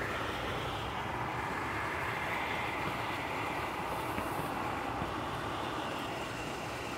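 Steady rushing and splashing of water pouring from the outlet of a water slide into a swimming pool.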